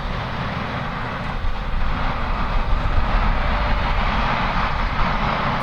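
Work truck's engine running under load as it drives out through deep mud, getting louder about a second and a half in.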